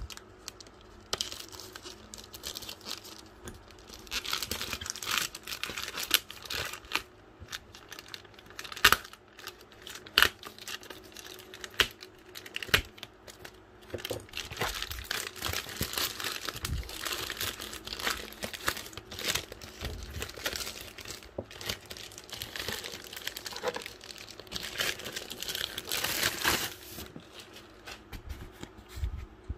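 Packaging of a massage gun being opened by hand: plastic wrap crinkling and tearing in irregular bursts, with scattered sharp knocks and clicks of the box and its contents.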